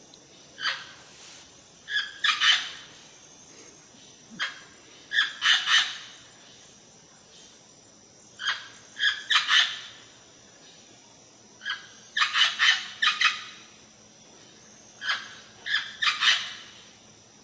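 A pet parrot calling in repeated bursts of short, high squawks, a cluster of several calls every three to four seconds.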